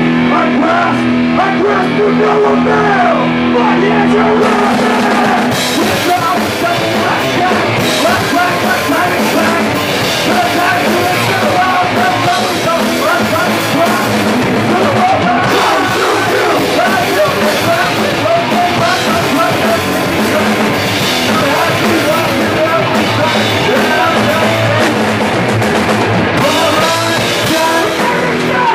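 Punk rock band playing live: electric guitar, bass and drum kit with a singer. The first few seconds are held chords, then about five seconds in the drums and cymbals come in hard and the full band drives on without a break.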